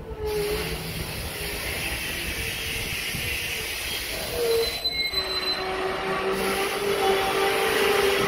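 Coal hopper wagons of a freight train rolling past on the rails, with a steady rolling rumble and wavering metallic squeals from the wheels. It grows louder in the second half as more squeal tones join in.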